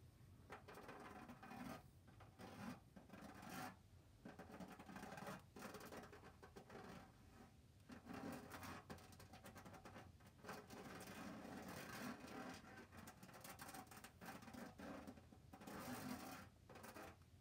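Spiky rubber fidget ball rubbed and scraped, a quiet scratchy rustle made of many uneven strokes with short pauses between them.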